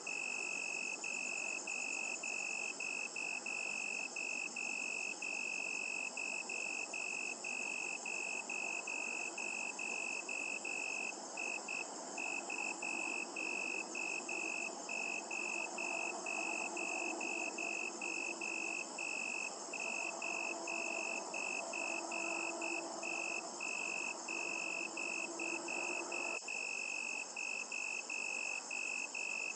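Outdoor night chorus: a high-pitched chirp repeats steadily about two to three times a second over a steady higher buzz. A faint low hum sits underneath and stops suddenly near the end.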